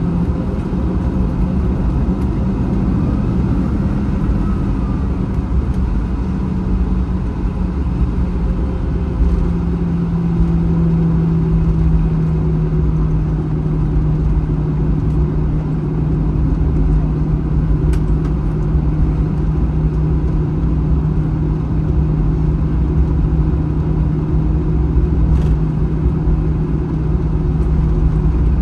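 Airbus A321 cabin noise while taxiing after landing: the jet engines at idle give a steady hum over a low rumble, with a couple of faint clicks.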